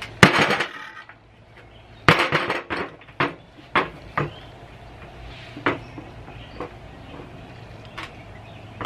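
Cast-iron float chamber and bellows assembly of a boiler water-level control being handled and shifted on a workbench: a run of metal clanks and knocks, loudest about a quarter second in and again around two seconds in, then single knocks spaced out.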